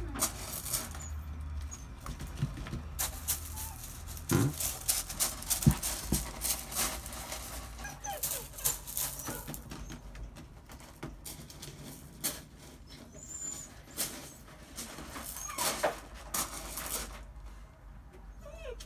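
Dutch Shepherd puppies scrambling up a steep hanging board: many quick claw clicks and scratches on the board, with a few short high whimpers.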